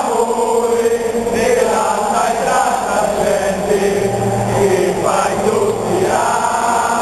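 Large stadium crowd of football supporters singing a chant in unison, holding long sung notes that change every second or so over a steady crowd noise.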